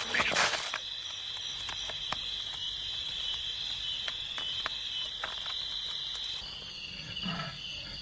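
Insects chirring in a steady high drone, with scattered faint clicks. About seven seconds in, a leopard cub starts to growl.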